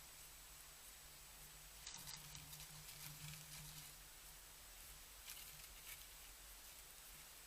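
Near silence: a faint steady hum and hiss, with a few soft scattered rustles and ticks, most of them about two to four seconds in.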